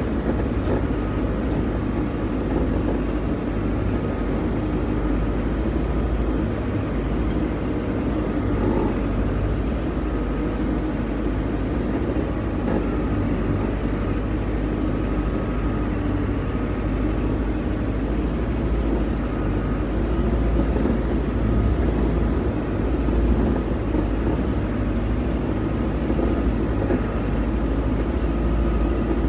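Heavy diesel vehicle's engine running steadily, heard from on board as it moves slowly along a sand track.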